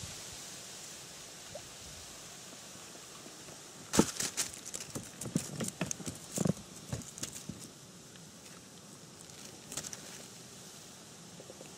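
Irregular knocks and taps of hands and gear handled in an inflatable boat, starting sharply about four seconds in and going on for a few seconds, with a few more taps near the end. A light steady hiss sits under it.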